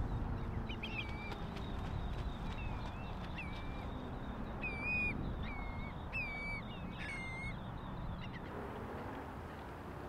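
Gulls giving short calls, each a quick note that drops and then levels off, about one a second, over a steady rush of surf.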